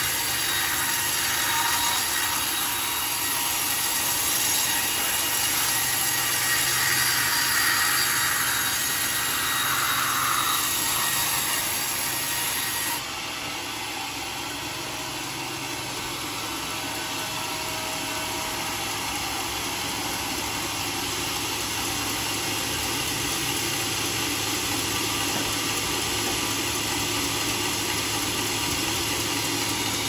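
Band sawmill cutting through a large teak log: a steady rasp of the blade in the wood over the machine's low hum. The sound changes abruptly and becomes a little quieter about thirteen seconds in.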